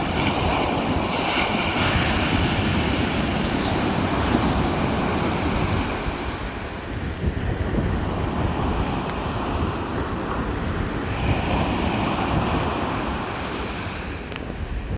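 Ocean surf breaking and washing up a sandy beach in a steady, swelling rush, with wind buffeting the microphone.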